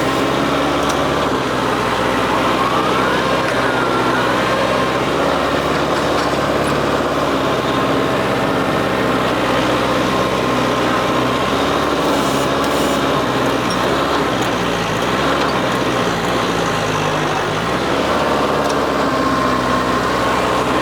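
New Holland WorkMaster 55 tractor's diesel engine running hard under load, its note shifting up and down every few seconds as it works.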